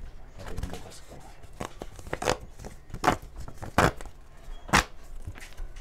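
A thin paper PIN mailer being torn and unfolded by hand: several short, sharp paper rips and crinkles, the loudest two near the end.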